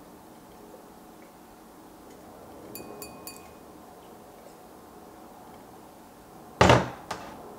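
A stemmed wine glass handled while someone drinks from it: a few light clinks with a brief glass ring about three seconds in. Near the end comes a single loud knock as the glass is set down on the table, followed by a small click.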